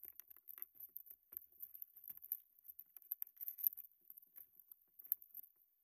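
Faint, irregular small taps and clicks of handling in a plastic fishing kayak.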